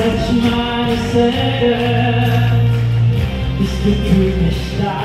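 A man singing a pop song live into a microphone over amplified backing music, with long held notes.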